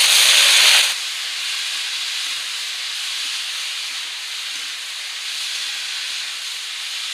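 Diced raw potatoes dropped into hot mustard oil in a wok: a loud burst of sizzling for about the first second, settling into a steady sizzle as they fry.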